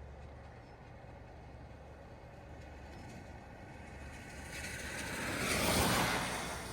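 A vehicle passing close by: its tyre and road noise swells to a peak about six seconds in and then fades, over a steady low engine hum.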